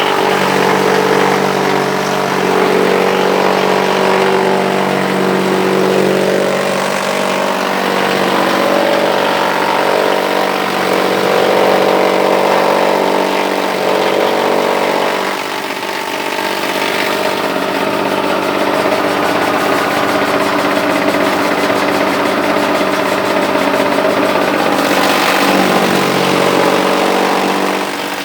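Chaff cutter silage chopper running, a steady mechanical drone at a fixed pitch. The tone shifts slightly about halfway through and again near the end.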